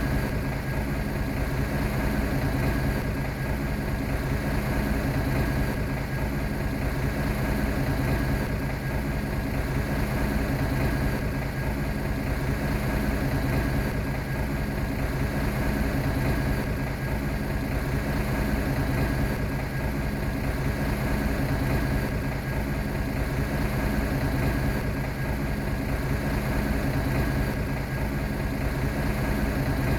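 Bulldozer's diesel engine running at a steady, unchanging speed.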